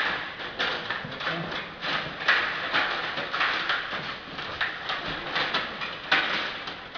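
Stiga table hockey game in play: quick, irregular plastic clacks and rattles as the player rods are pushed and spun and the plastic figures knock against each other and the rink.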